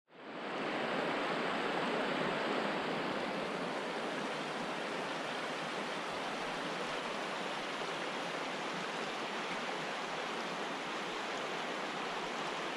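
The Upper Deschutes River rushing steadily over a shallow, rocky riffle, fading in at the start.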